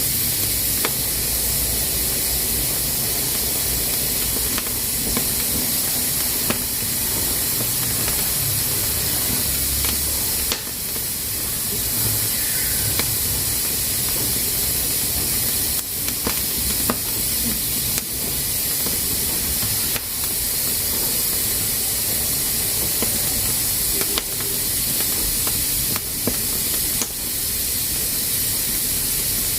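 Pressure cooker venting steam, a steady high hiss, with a sharp click every second or few.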